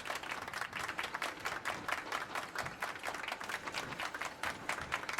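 Applause: a dense, even patter of many hands clapping.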